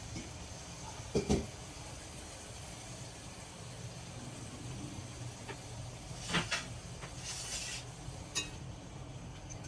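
Kitchenware handled: a pair of sharp knocks about a second in and another pair about six seconds in, then a short hiss and a single click near the end, over a steady low hum.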